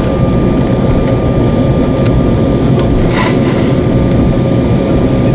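Airliner cabin noise while taxiing: a steady low rumble from the engines and the rolling aircraft, with a thin steady whine over it. A brief hiss comes about three seconds in.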